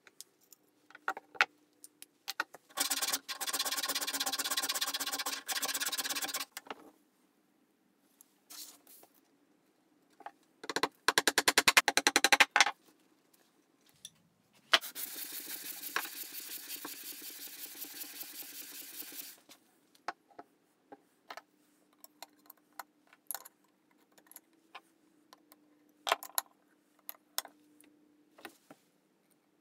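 Metal sole of a vintage Anchor hand plane scraping on an abrasive strip in three long bursts, the middle one a quick run of short strokes: the sole being lapped flat. Clicks and taps of the plane's metal parts being handled come between the bursts.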